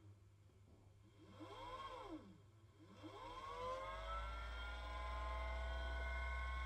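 Brushless DC air-conditioner fan motor driven from a speed-control tester, whining as its speed is turned up and down. There is one brief rise and fall about a second and a half in, then the whine rises again from about three seconds and holds a steady pitch over a low hum.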